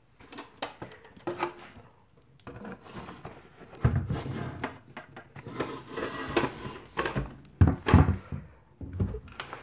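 Handling noise of a plastic leaf blower tube being worked one-handed into the plastic coupling of a hose assembly: irregular knocks, clicks and rubbing, busiest a few seconds in and again near the end.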